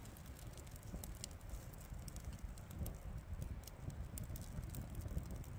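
Scattered light clicks and ticks, irregular and close together, over a steady low rumble.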